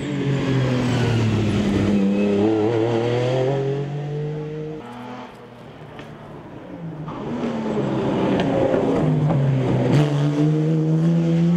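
Rally car engines at full throttle on a stage road. One car accelerates past, its pitch climbing, and cuts away suddenly about five seconds in. A second car then comes up and accelerates hard, its pitch rising toward the end.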